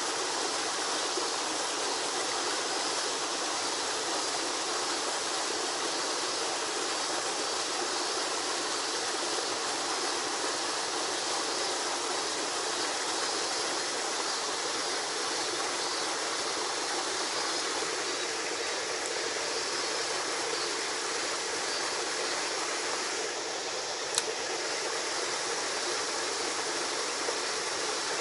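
Small cascade rushing down a narrow rock chute and splashing into a pool, a steady, even rush of water. A single sharp click sounds near the end.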